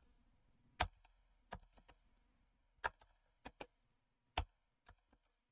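Computer keyboard typed on slowly: about seven faint, separate keystrokes spread over five seconds, two of them in a quick pair.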